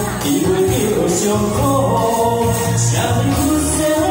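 A man sings an upbeat song into a microphone over a loud backing track, with a tambourine and hand shakers played along.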